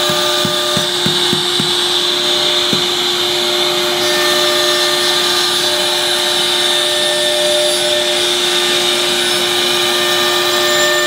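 CNC router spindle running at speed with a steady whine while its small bit cuts grooves in a wooden sheet, under the rushing noise of the dust-extraction hose. A few soft knocks come in the first three seconds.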